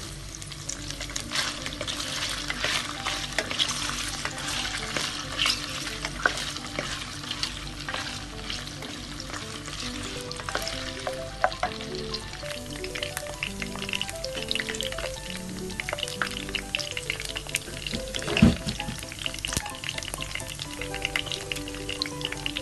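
Food sizzling and crackling as it fries in a pan, being stirred, with one louder knock of a utensil against the pan near the end.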